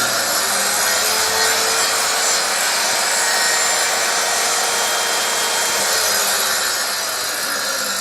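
Table saw switching on abruptly and running loud, its blade cutting through wood; the motor's pitch drops over the last couple of seconds as the cut loads it.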